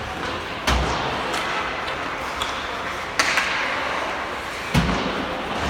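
Ice hockey play on a rink: about four sharp knocks from sticks, puck and boards, two of them heavier thumps, over the steady hiss of skates and rink noise.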